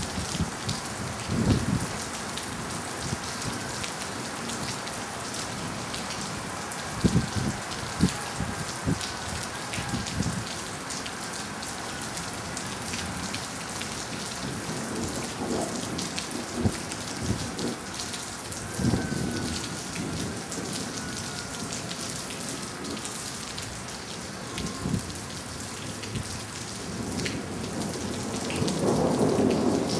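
Steady rain falling in a severe thunderstorm, with several short, low rumbles of thunder and a longer rumble building near the end.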